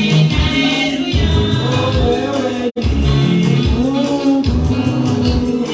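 Gospel praise and worship music: singing over a pulsing bass beat, with a split-second dropout in the audio about halfway through.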